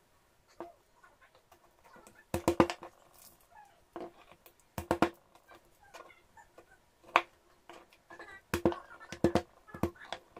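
Chef's knife knocking against a plastic cutting board as garlic cloves are smashed with the flat of the blade. The sharp knocks come in short groups of one to four every couple of seconds, each with a brief ring from the blade.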